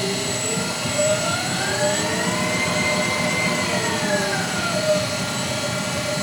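Amada Wasino GLS-50A optical profile grinder running with a steady motor whine. A set of tones climbs in pitch from about a second in and falls back by about five seconds in, as the variable speed is turned up and down.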